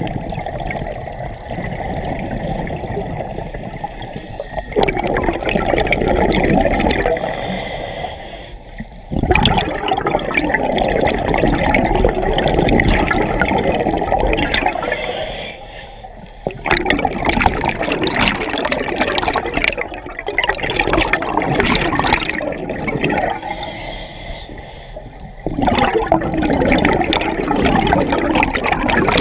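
Scuba diver's own regulator breathing, heard underwater through a mask-mounted GoPro's housing: about four long bursts of exhaled bubbles gurgling from the regulator exhaust, each separated by a quieter stretch of inhalation with a faint steady hiss.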